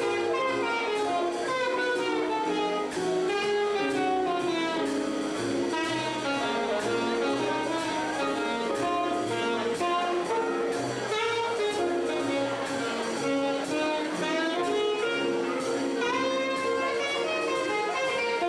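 Live jazz combo playing: a saxophone carries a moving melodic line over upright bass notes, drum kit cymbals and keyboard.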